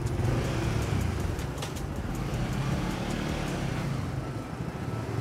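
Road traffic: a steady engine drone under a haze of street noise.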